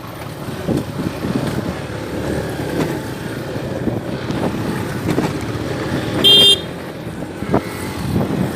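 Road traffic going by, with a short, loud horn toot about six seconds in.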